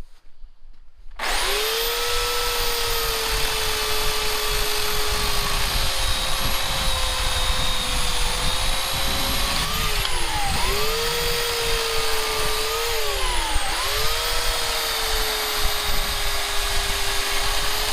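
Bauer corded electric chainsaw starting up about a second in and cutting through a Bradford pear log, its motor giving a steady high whine over the chain-through-wood noise. The whine sags in pitch and recovers twice as the motor loads, and starts to fall near the end.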